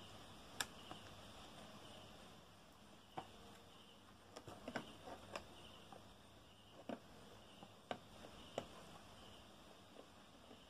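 Fingernails picking and scratching at the sealed lid of a cardboard toy box, making scattered soft clicks and scrapes, several in quick succession near the middle. Under it a faint high chirp repeats at an even pace.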